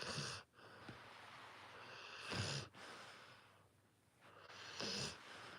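Rottweiler puppy snoring in her sleep: three short, raspy snoring breaths about two and a half seconds apart.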